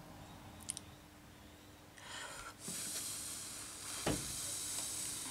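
Breath blown by mouth across wet alcohol ink on a laminating sheet to spread it: a short breathy hiss about two seconds in, then a longer steady one to the end. A single knock comes about four seconds in.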